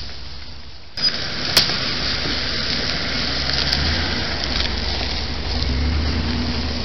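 A pickup truck's engine running as it drives slowly past close by, a steady low hum that swells twice. A couple of sharp clicks about a second in.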